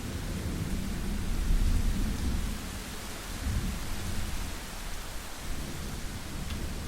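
Thunderstorm: steady rain hiss with a low rolling rumble of thunder that swells to its loudest about a second and a half in, swells again briefly, then eases off.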